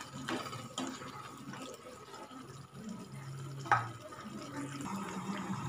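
Pepper chicken gravy bubbling gently in a pan on the stove, a soft, uneven liquid sound over a faint steady hum. A single sharp tap comes a little past halfway.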